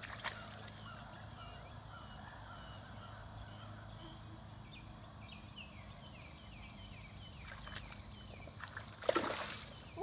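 Birds chirping quietly, many short quick chirps, over a faint steady low hum. About nine seconds in, a brief splashing of shallow water.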